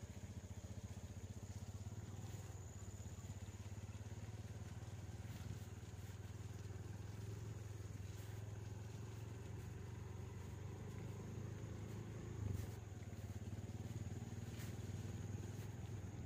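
Daihatsu Gran Max engine running steadily at low, even revs: a continuous low drone, with a single brief thump about three-quarters of the way through.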